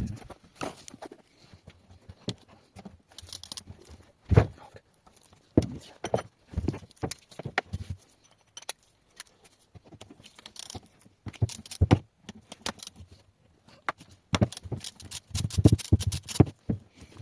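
Irregular metallic clinks, knocks and rattles of hand tools and loose parts on a Subaru WRX five-speed gearbox case as it is taken apart, with a dense run of knocks near the end.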